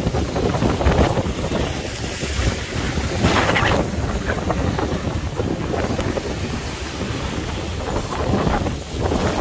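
Strong storm wind buffeting the microphone in a steady low rumble, with breaking surf behind it. A brief louder rush comes about three seconds in.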